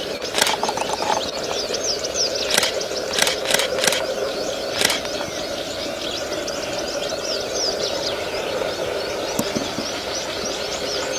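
Many small birds chirping, with short, high, falling chirps repeating throughout over a steady outdoor hum. A few sharp clicks come in the first five seconds.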